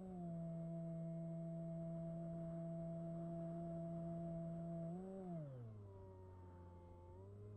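Electric motor and propeller of a Bixler 1 RC plane running at a steady pitch. About five seconds in it is throttled back, and the pitch glides down to roughly half, then starts to rise again near the end.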